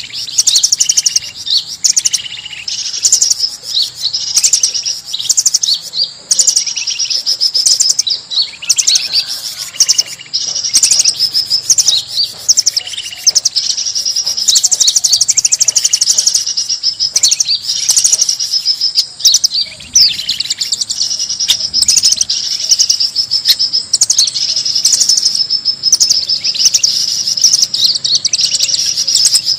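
Noisy chorus of forest birds, many rapid high chirps and trills overlapping without a break: a bird-lure call recording (suara pikat) meant to draw birds in.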